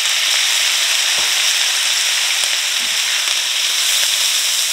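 Diced Spam and canned mixed vegetables with onion sizzling in hot oil in a stainless steel frying pan: a loud, steady hiss.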